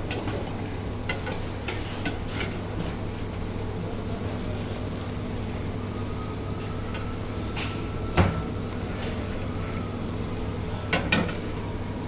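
Kitchen clatter: dishes and utensils clinking, with a few sharper knocks, the loudest about eight seconds in and another pair near the end, over a steady hum of kitchen equipment.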